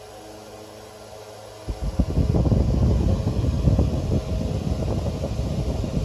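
Chrome oscillating desk fan running. For the first second and a half its head is turned aside and a steady motor hum is heard; then, as the head swings toward the microphone, its air stream buffets the microphone with a loud, gusty low rumble.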